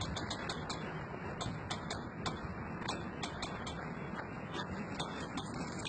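A quick, irregular run of sharp clicks, a few to the second, over steady background noise.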